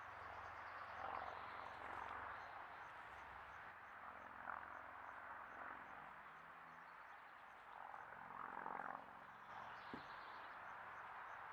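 Red fox kits play-fighting, making low rumbling growls in three short bouts over a faint steady background hiss, with a single sharp click near the end.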